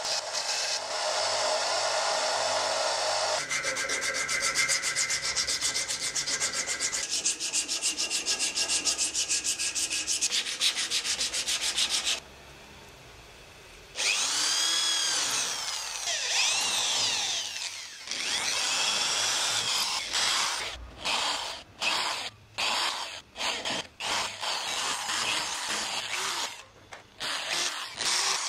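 Jujube-wood handle blank pressed against a running narrow belt sander: a steady grinding hiss with a fast ticking that shifts in pitch a couple of times. After a short pause about halfway in, a drill bores into the end of the wooden handle, its pitch sweeping up and down, then runs in short broken bursts near the end.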